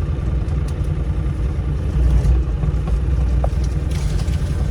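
Bobcat E35 mini excavator's diesel engine running steadily, a loud, even low rumble.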